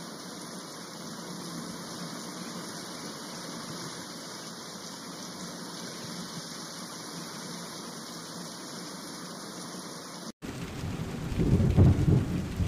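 Steady hiss of heavy rain falling on floodwater. After a brief break about ten seconds in, a louder, uneven low rumble comes in.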